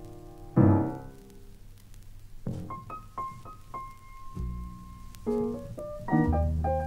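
Jazz piano playing: a loud chord about half a second in, then a line of single high notes with one held note, and low notes and further chords near the end.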